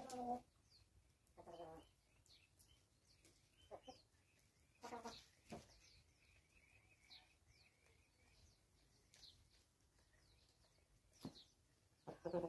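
Chickens clucking faintly now and then while foraging: short, low clucks a few seconds apart, with a small cluster near the end.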